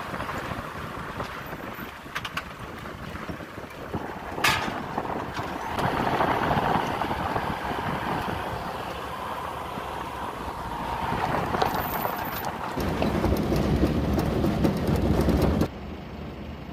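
Car driving over a rough dirt track, with road and engine noise heard from inside the cabin that swells and eases. A sharp click about four and a half seconds in, a heavier rumble toward the end, then the noise cuts off suddenly.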